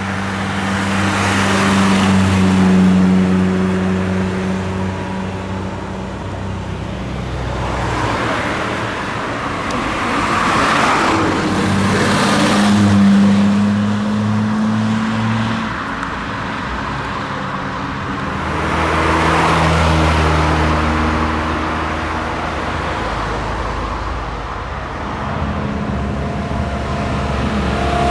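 Cars driving past one after another, each engine note swelling and fading as it goes by, three passes in all.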